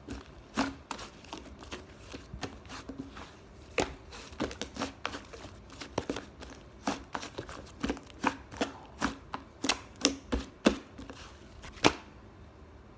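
Irregular sharp taps and clicks, about one to three a second, stopping about a second before the end.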